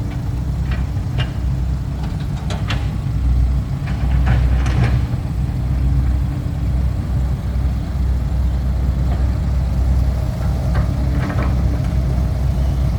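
Excavator's diesel engine running with a low, steady hum, quiet enough that it can barely be heard over the surroundings, with a few light knocks.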